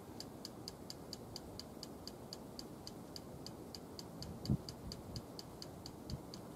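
Steady, evenly spaced high ticking, about five ticks a second, with one low thump about four and a half seconds in.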